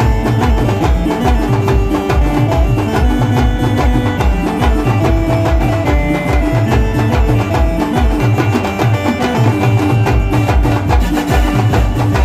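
Live band music: large shoulder-slung drums beat a fast, steady rhythm, about three strokes a second, under a melody of held notes.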